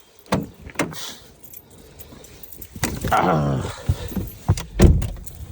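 Car keys jangling with sharp clicks, a wavering creak about three seconds in, and a heavy low thump near the end.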